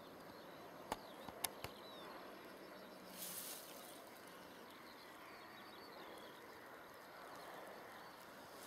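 Quiet open-field ambience with faint distant birdsong chirping throughout. A few sharp clicks come about a second in, and a brief hiss about three seconds in.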